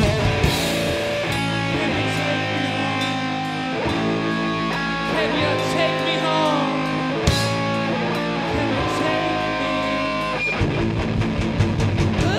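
Rock band playing live: electric guitar and bass ringing out in long held notes over sparse drum and cymbal hits. Near the end the drums come back in hard and fast.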